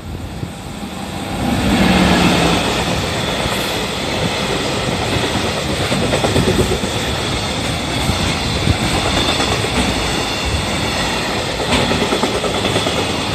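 EF64 electric locomotive passing close by about two seconds in, its arrival bringing a sharp rise in level and a brief low hum. A long string of loaded container wagons follows, rolling past with a continuous clatter of steel wheels on the rails.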